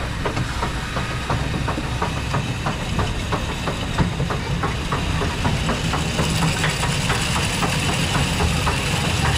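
Children's roller coaster train (Senyo Kogyo Kids Coaster) climbing its lift hill: an even, rapid clicking of the anti-rollback ratchet, about three to four clicks a second, over the steady low rumble of the lift drive and train.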